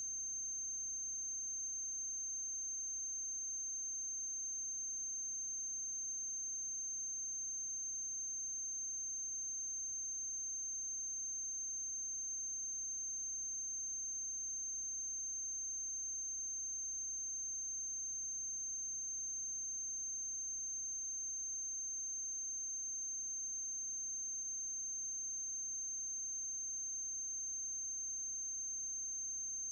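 Steady electrical noise on an otherwise empty soundtrack: a constant high-pitched whine with a faint low hum beneath it and no other sound.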